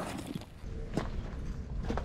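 Footsteps on stony, gravelly ground: a few separate steps about a second apart, over a low steady rumble.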